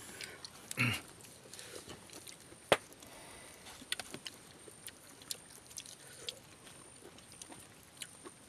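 People chewing juicy pineapple chunks: quiet wet mouth sounds with scattered clicks and smacks, the sharpest click a little under three seconds in.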